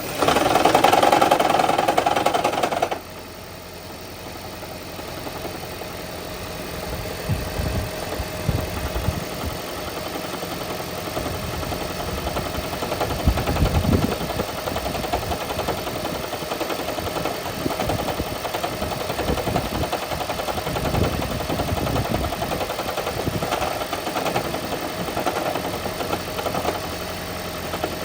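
2012 Toyota Prius's 1.8-litre four-cylinder petrol engine starting up with a loud rumble and rattle. The noise is loudest for the first three seconds, then drops to an uneven running rumble with occasional low thumps. The startup rumble is the sign of a blown head gasket; the noise went away once the gasket was repaired.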